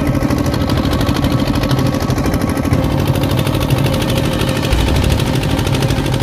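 Stationary engine driving a riverside water pump, running steadily with a rapid, even beat.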